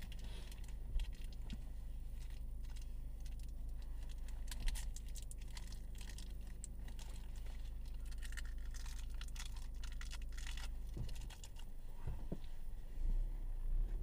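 Steady low rumble of an idling car heard from inside the cabin, with scattered small rustling and clicking handling noises. Near the end the low rumble grows louder as the car starts to pull forward.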